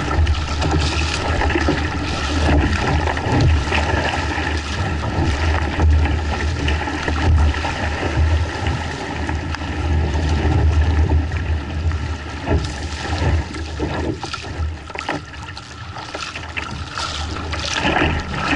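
Water rushing and splashing around a kayak's hull and paddle blades as it is paddled into oncoming waves, over a steady low rumble.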